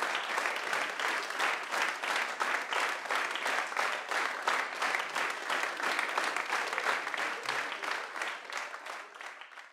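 Audience applauding steadily; the applause fades out near the end.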